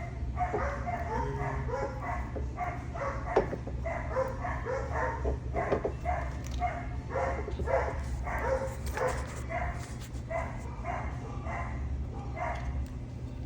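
A dog barking over and over, about two barks a second, over a steady low hum.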